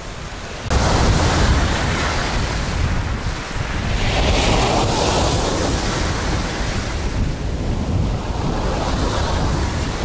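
Black Sea waves surging onto a pebble beach in a slight swell from a small storm, with strong wind buffeting the microphone in a low rumble. The surf swells louder about four seconds in.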